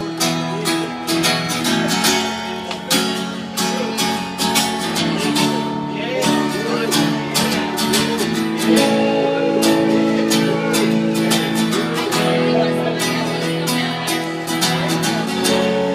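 Acoustic band music led by a strummed acoustic guitar, with steady regular strums under held chords.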